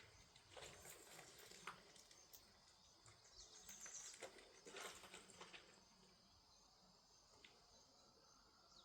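Faint outdoor quiet: scattered small clicks and rustles, with a few brief high bird chirps a few seconds in and again at the end.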